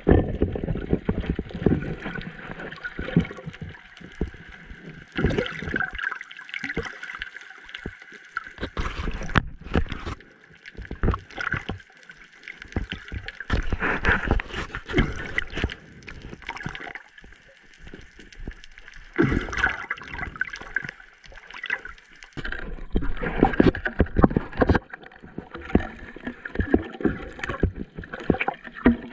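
Underwater sound picked up by a GoPro in its waterproof housing: water rushing and gurgling past the camera, with irregular muffled knocks and crackles.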